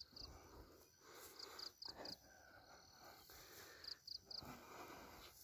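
Near silence with faint insects chirping: trains of short, high, evenly spaced chirps, about four a second, stopping and starting again.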